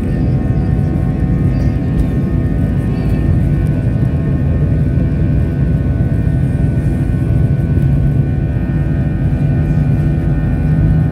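Airbus A320 jet engines and runway rumble during the takeoff roll, heard from inside the cabin: a loud, steady roar with a layer of engine whine. Near the end a low hum rises slightly in pitch.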